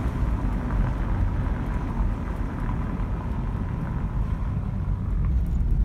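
Steady low rumble of a car driving, heard from inside the car.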